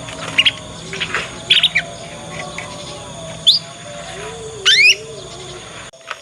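Young canary twittering: short, high, quick rising chirps and chattering notes, the practice song of a juvenile canary still learning its phrases. A run of rising sweeps about four and a half seconds in is the longest and loudest.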